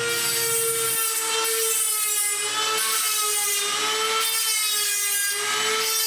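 Handheld rotary tool spinning a small grinding stone against the steel teeth of a large bandsaw blade, sharpening them: a steady high-pitched whine over a grinding hiss, its pitch wavering slightly.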